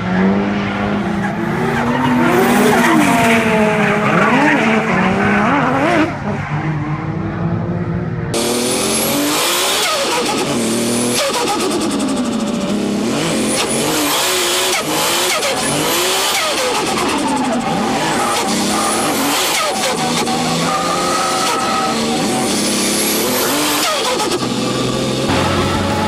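Nissan Skyline R32 GT-R's RB26 straight-six, enlarged to 2.7 litres with a TD07 turbo, revving up and down repeatedly through a drift, with tyre squeal. It is heard from trackside for the first several seconds, then from inside the cabin.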